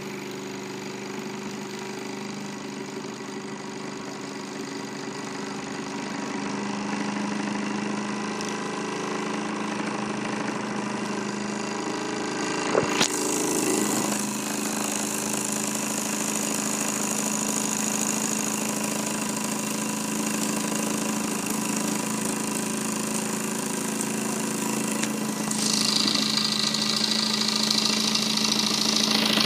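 Small Mamod toy steam engine running steadily under steam with an even whirr. It knocks sharply once about halfway through, and a high steady tone joins a few seconds before the end.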